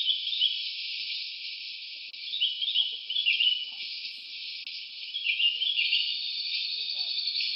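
Jungle ambience: a steady high-pitched insect drone with short, warbling chirping calls over it in a few clusters, the chirps thickest about two and a half seconds in and again past five seconds.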